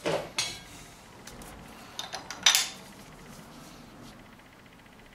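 Sharp metal-on-metal clinks as a BMW M52 engine's single-VANOS unit is worked over its studs against the cylinder head to engage the cam sprocket. There are two clinks near the start, then a small cluster about two seconds in, with the loudest at about two and a half seconds.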